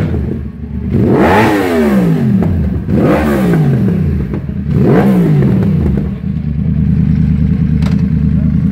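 Yamaha R1 crossplane inline-four through a Graves aftermarket exhaust, revved in three quick blips while standing, each rising sharply and dropping straight back, then settling into a steady idle about six seconds in.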